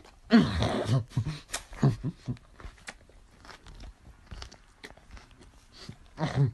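Chewing and crunching on a mouthful of raw pepper, with scattered short crunches through the middle. A loud falling vocal cry comes about half a second in, and a brief vocal sound near the end.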